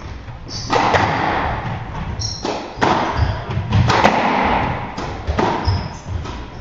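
Squash rally: the ball is struck by the rackets and smacks off the court walls about once a second, each hit ringing in the enclosed court. Short high squeaks from the players' shoes on the wooden floor come in between the hits.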